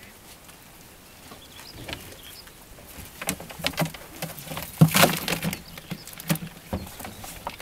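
A wet monofilament fyke net with wire hoops being lifted and shaken out over a plastic bucket: a run of rustles, knocks and clatters, quiet for the first few seconds and loudest about five seconds in.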